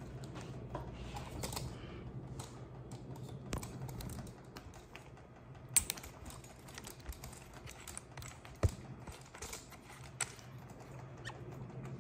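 Scattered light clicks and knocks of handling, two sharper than the rest about six and nine seconds in, over a steady low hum.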